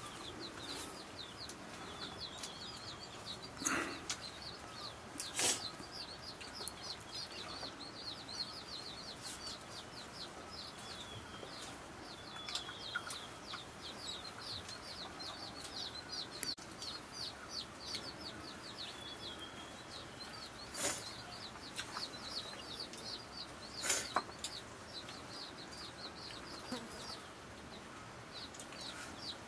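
A few sharp clinks and knocks against steel plates as rice is eaten by hand, about four of them standing out, over a continuous fast high chirping in the background.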